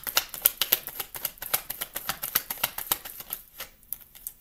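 A deck of tarot cards being shuffled by hand: a fast, crackling run of card clicks and slaps that stops shortly before the end.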